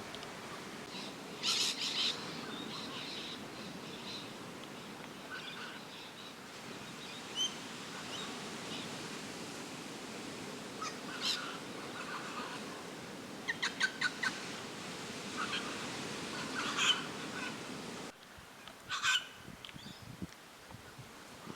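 Wild birds calling in short, scattered bursts of chirps and calls over a steady background hiss, which drops away abruptly about eighteen seconds in.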